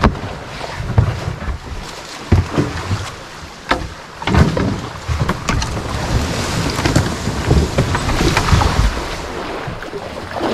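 A plastic whitewater kayak shuffled down a leaf-covered riverbank and sliding into a fast, muddy river: irregular knocks, scrapes and rustling of the hull on the bank, then water rushing and splashing around the boat.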